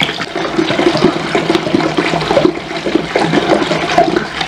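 Water glugging out of an upturned 19-litre plastic water bottle as it is poured into a plastic fermenting bucket, air gulping back into the bottle in uneven bubbles. The water is being added to dilute a cane-molasses and sugar wash up to 25 litres.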